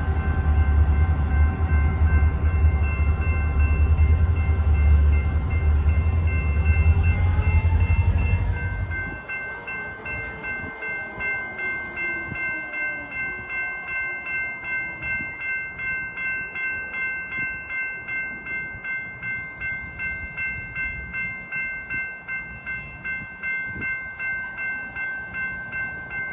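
EMD GP40-series diesel locomotives rumbling past close by, loud and low, for about the first nine seconds. After the rumble drops away, grade-crossing warning bells go on ringing in a steady, even beat.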